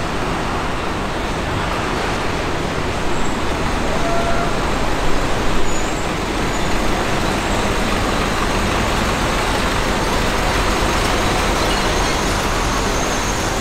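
Busy city street traffic: a steady, dense hiss of vehicles passing, which grows a little louder with a few short bumps in the middle.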